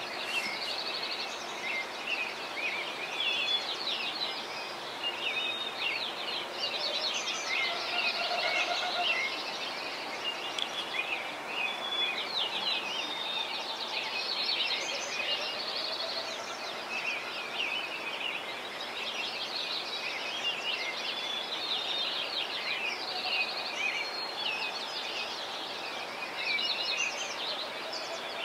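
Many small birds chirping and trilling at once, a dense, unbroken tangle of quick, high calls.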